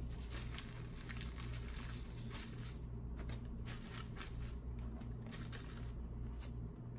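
Plastic packaging being handled and crinkled: a run of small irregular crackles and rustles, over a steady low hum.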